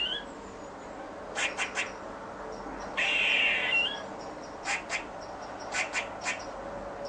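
Squirrel barking: short, sharp barks in quick runs of two and three, with a longer, harsher call lasting most of a second about three seconds in.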